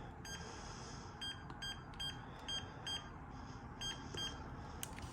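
Panasonic KX-TG210 cordless phone handset keypad beeping as a number is dialled: about eight short beeps of the same pitch at uneven intervals, one per key press.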